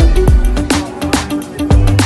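Upbeat music with a steady beat of about two strokes a second over deep bass.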